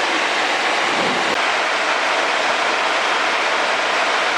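Steady drone of a Piper PA-28R-180 Cherokee Arrow in cruise flight, heard inside the cabin: the four-cylinder Lycoming engine, propeller and airflow blend into an even rushing noise at a constant level.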